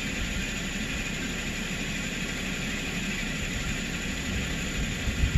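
2010 Toyota Corolla's four-cylinder engine running steadily, with a low, even rumble.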